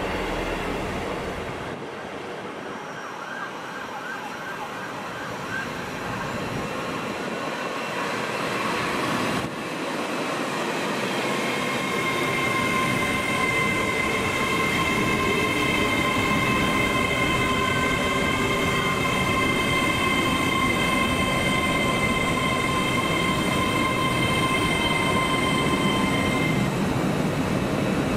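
An East Midlands Railway Class 158 diesel multiple unit runs past. About nine seconds in, after a cut, an LNER Azuma (Class 800) train runs along the platform line, with a steady high whine of several tones that holds from about twelve seconds in until shortly before the end.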